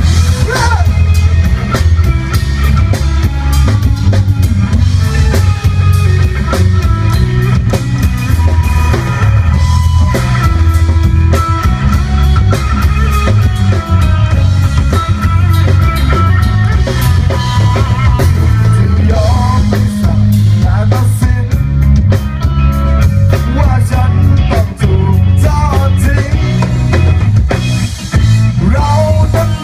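Live rock band playing loudly through a PA system: a drum kit keeps a steady beat under electric guitar and bass.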